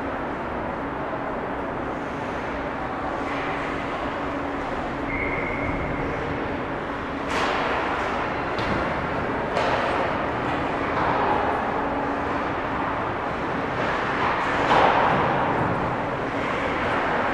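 Ice rink ambience: a steady low hum under a haze of distant play, then from about seven seconds in several short scrapes of hockey skates on the ice, the loudest a little before the end.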